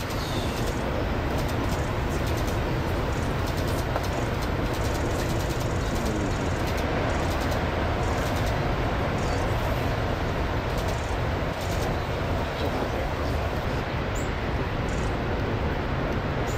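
Steady, loud roar of wind and big ocean surf, heaviest in a low rumble, with no engine note or voices standing out.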